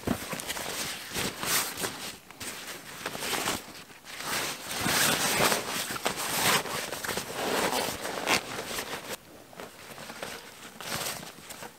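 Nylon fabric rustling and crinkling in irregular bursts as a rolled-up bundle is stuffed by hand into a canvas drawstring rucksack, loudest about halfway through.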